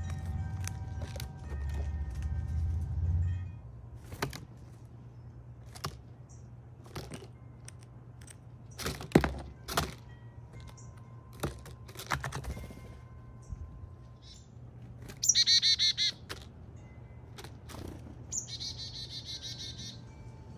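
Scattered sharp knocks and taps of a gray squirrel and a blue jay feeding on a feeder table of peanuts and seed, the loudest two about half a second apart near the middle. Two quick runs of high, rapidly repeated bird calls come toward the end.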